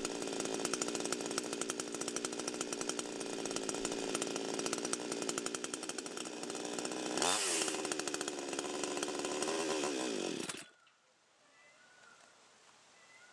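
CD52H two-stroke petrol chainsaw running steadily, being run to burn off its remaining fuel before storage. It revs up briefly and drops back about seven seconds in, then the engine cuts off suddenly near the end.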